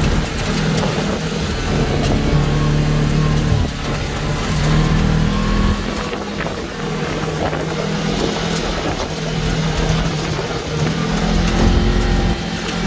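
ATV engine running under way on a dirt trail, its note stepping up and down with the throttle, with wind rumbling on the microphone.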